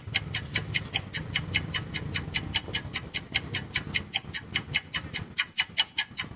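Clock-ticking sound effect: a rapid, even ticking at about five ticks a second, marking a mock moment of silence.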